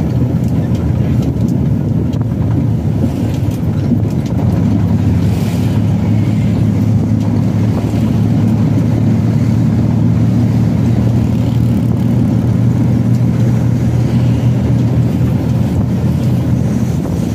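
Truck engine running steadily while driving, heard from inside the cab, with tyre and wind noise.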